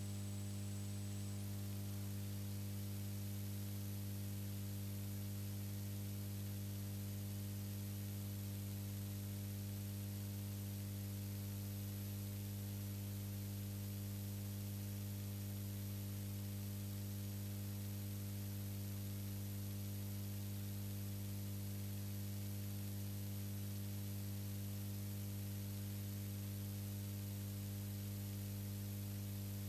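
Steady electrical hum, strongest in a low buzz with a fainter tone above it, over a light hiss and a thin high whistle; no race sounds are heard.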